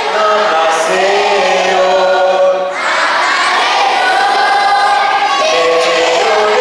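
A large group of children singing together, led by a woman singing into a microphone, holding notes in a slow tune. About three seconds in the voices swell loudly.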